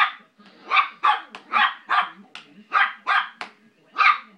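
Small dog barking in a quick run of short, sharp yaps, about two a second, protesting at having her hair brushed.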